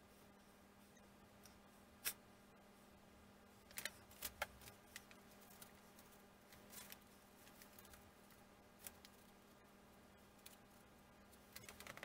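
Faint clicks and light taps of wooden wing ribs and spars being handled and fitted together on a building board, over a steady low hum. There is one sharp click about two seconds in, a cluster of taps around four seconds, and more near the end.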